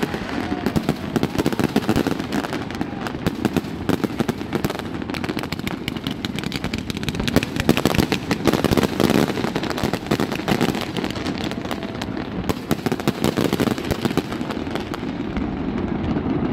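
Fireworks display going off: a dense, continuous crackle of many small bursts and bangs from crackling glitter shells. The crackle thins near the end.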